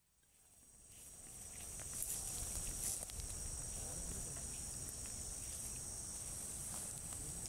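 Steady, high-pitched chorus of insects such as crickets, fading in over the first two seconds and then holding.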